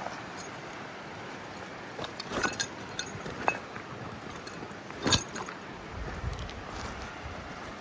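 Several sharp clinks and knocks of gear being handled, the loudest about five seconds in, over the steady rush of a mountain stream.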